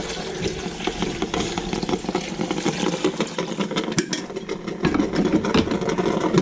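Water being poured from the glass carafe into the coffee maker's reservoir for a rinse cycle: a continuous splashing pour with small clinks and rattles.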